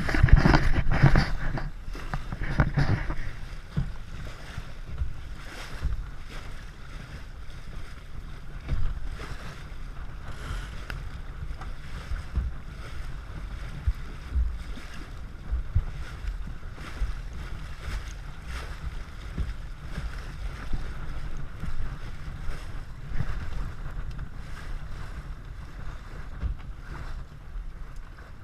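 Wind buffeting the microphone, with water rushing past the hull of a Lightning sailing dinghy under way. Louder for the first few seconds, then a steady, gusty rumble.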